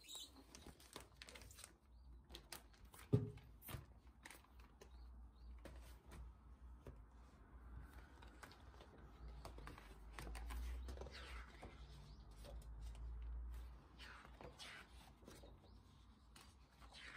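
Faint rustling and handling of stiff paper and a plastic sleeve as a large album's gatefold and booklet pages are opened and turned, with a sharper tap about three seconds in.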